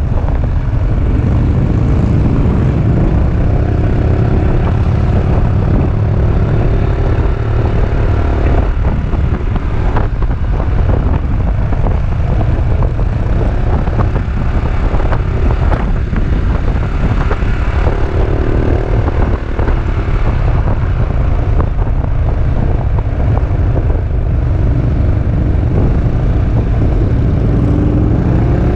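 Steady wind rush on the action camera's microphone aboard a moving Peugeot Métropolis three-wheeled scooter, over the scooter's single-cylinder engine, whose pitch rises and falls with the throttle.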